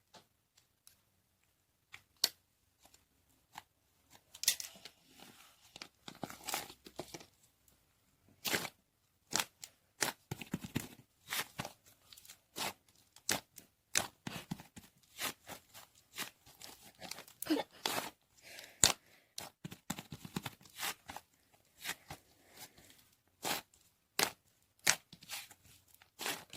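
Packaging or wrapper being crinkled and torn: a string of sharp crackles and rustles, sparse at first and coming thick and fast from about four seconds in.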